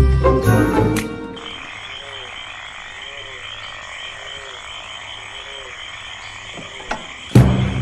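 Night-time ambience of frogs croaking in a slow, regular rhythm, about three croaks every two seconds, over a steady high-pitched chirring. Background music cuts out about a second in and comes back loudly near the end.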